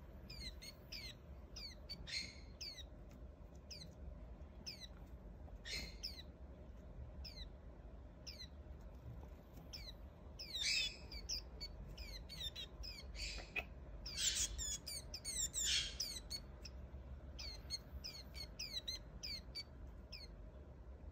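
A caged Swinhoe's white-eye chirping steadily: a quick run of short, high notes that each slide downward, about two or three a second. A few louder, raspier bursts stand out about two, six and eleven seconds in and again between thirteen and sixteen seconds.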